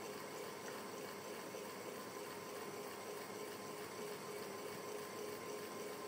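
Electric fan running steadily: an even rushing hiss with a faint, steady hum underneath.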